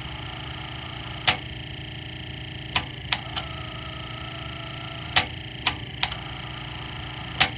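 Sony TC-K65 cassette deck's BSL capstan motor running loud and rough with a steady hum and hiss, the sound of bad motor bearings, while the tape transport is run in rewind and fast forward. About seven sharp mechanical clicks come as the transport switches modes.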